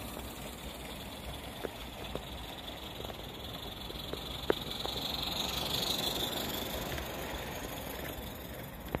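Garden-scale live steam locomotive with a train of coaches running past close by: a steady hiss that swells as it nears, is loudest about six seconds in, then eases off. A few sharp clicks from the wheels on the track along the way, the loudest about halfway.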